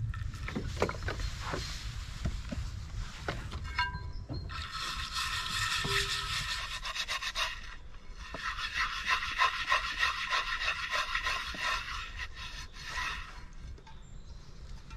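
Water poured into a frying pan, then the pan scrubbed with a bundle of pine needles in fast back-and-forth strokes, in two long spells of rubbing with a short pause between.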